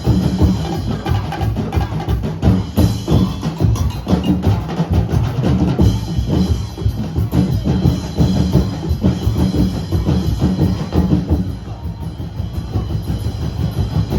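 Street-dance percussion band of bass and snare drums playing a fast, driving beat, slightly quieter near the end.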